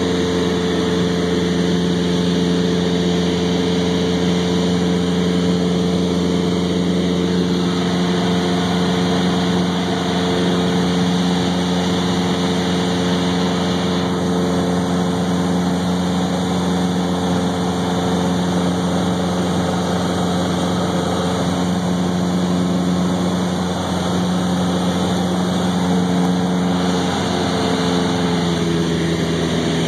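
Cessna 172's piston engine and propeller droning steadily in flight, heard from inside the cabin.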